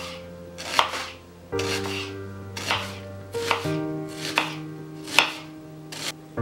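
Kitchen knife slicing an onion into strips on a bamboo cutting board: a crisp cut and tap on the board about once a second, seven times.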